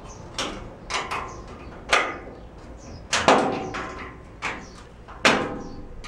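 Irregular metallic clanks and knocks with a short ring, several over a few seconds, as a wrench works a stuck, peened-over nut off a door handle's mounting screw on a metal van door.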